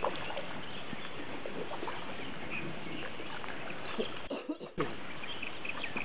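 Kayak paddles dipping and splashing in calm creek water, with small birds chirping in the background. The sound briefly dips about four seconds in.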